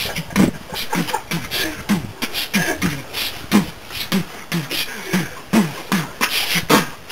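A person beatboxing a steady beat by mouth, with low falling-pitch kick sounds alternating with sharp hissing snare and hi-hat strokes.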